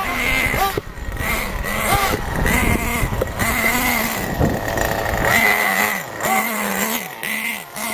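Radio-controlled cars' motors revving up and falling off again and again in short bursts, over a steady high whine.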